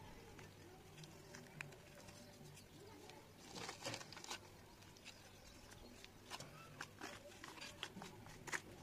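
Faint crumbling and crackling of dry red clay lumps broken up by fingers, then a metal spoon scraping and scooping through the powder. Scattered small crackles, a denser cluster about three and a half seconds in, and several sharp ticks near the end.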